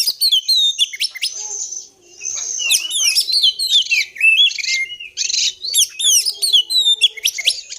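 Oriental magpie-robin (kacer) singing a fast, varied song of quick downward-sweeping whistles and buzzy notes, with a brief pause about two seconds in.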